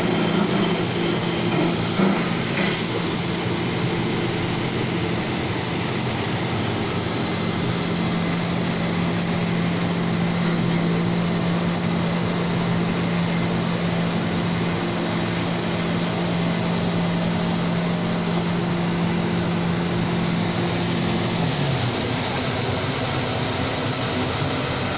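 CNC wood lathe running: a steady motor hum over a continuous noise of the machine at work. A click about 2 s in, and the hum drops in pitch and fades about 22 s in as the motor slows.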